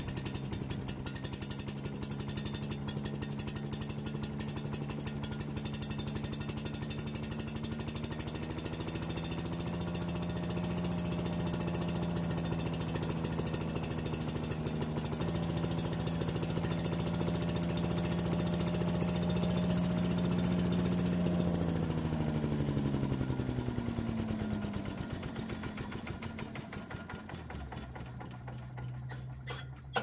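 Yard-Man leaf vacuum and mulcher's small four-stroke engine running steadily now that it starts again after the stale gas was flushed out. About two-thirds of the way through it slows, its pitch and loudness dropping to a lower, quieter speed near the end.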